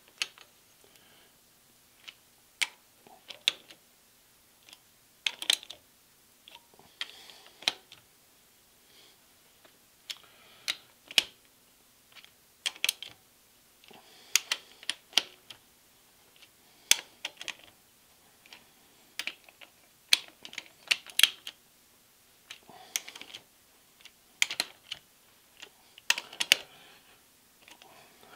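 Ratchet wrench clicking in short, irregular runs as the bolts locking the milling machine's head are tightened, with pauses between strokes.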